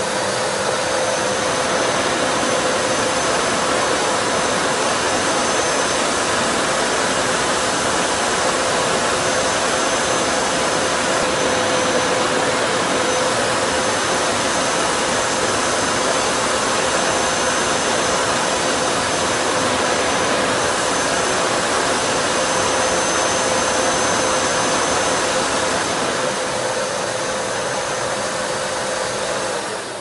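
Kärcher SE 5.100 spray-extraction vacuum cleaner running: the suction motor rushes steadily with a constant whine and a faint high whistle, dropping a little in level over the last few seconds.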